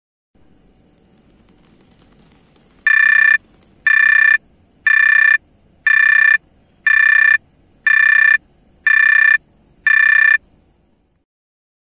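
Digital alarm clock beeping: eight short high beeps, about one a second, over faint room noise.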